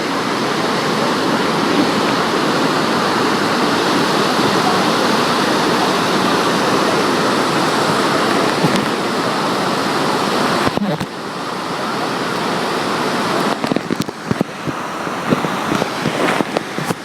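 Iguazu Falls: a loud, steady rush of massive falling water. About eleven seconds in it drops slightly and becomes uneven, with short sharp knocks over the rush.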